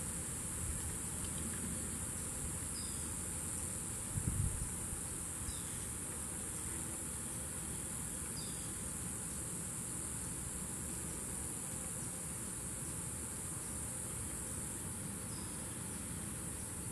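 Steady high-pitched drone of a rainforest insect chorus, with a few short, faint bird chirps now and then and a brief low thump about four seconds in.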